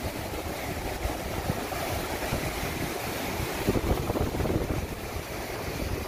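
Rough surf breaking and washing in over and over, driven by strong monsoon wind, with wind buffeting the microphone.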